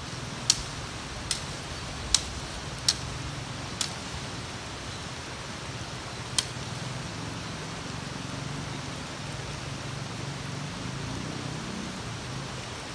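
Six sharp strokes of a blade chopping into a wooden stick: five in the first four seconds, the last one about six seconds in. A steady hiss of rain runs underneath.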